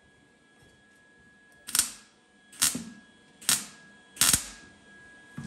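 MIG welder laying four short tack welds on a thin sheet-metal air-cleaner breather ring, each a brief burst of arc noise, a little under a second apart.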